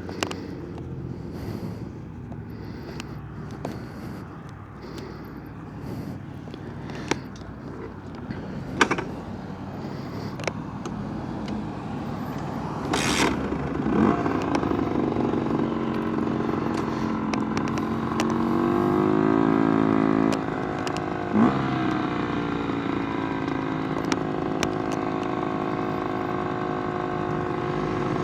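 Rieju MRT Pro motorcycle engine running. The first half is a quieter low running note broken by scattered clicks and knocks. About halfway the engine note comes up strongly and climbs in pitch as the bike accelerates, drops suddenly on a gear change about two-thirds in, then holds a steady note.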